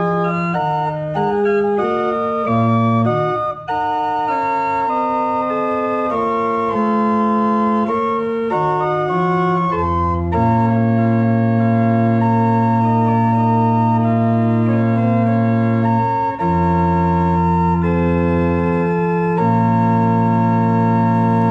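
Church organ playing the opening prelude of a service: moving chords through the first half, then long held chords from about ten seconds in.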